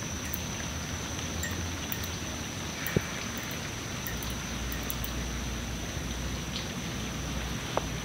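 Steady, even hiss of a quiet street at night, with a faint high steady tone and a few sharp ticks, the loudest about three seconds in and another near the end.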